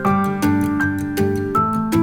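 Background music: sustained keyboard notes changing in a steady rhythm.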